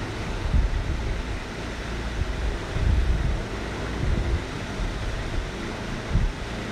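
Steady rushing background noise with an uneven low rumble.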